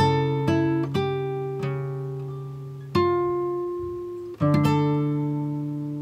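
Background music: acoustic guitar picking slow notes and chords, each left to ring out and fade before the next.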